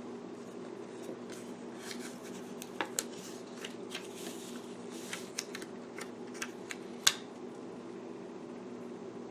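Paper sticker sheet and planner pages being handled while a sticker is peeled and pressed down: scattered soft rustles and light clicks, with one sharp tap about seven seconds in, over a steady low hum.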